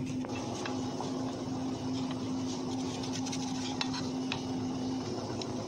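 Cheddar cheese being grated by hand on a plastic-framed grater over a plate: a steady scraping with small clicks of the grater against the plate. A steady low hum runs beneath it and stops near the end.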